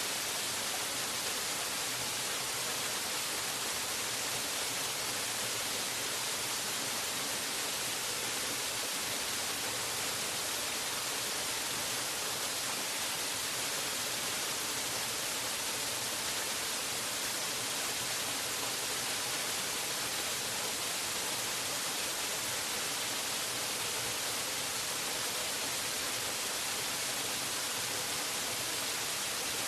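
Waterfall: a steady, even rush of falling water, hiss-like and bright, with no change throughout.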